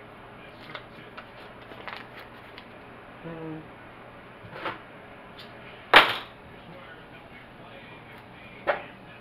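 A few sharp clicks and knocks of kitchen items being handled off to the side, the loudest a single crack about six seconds in, with smaller ones about a second before and near the end.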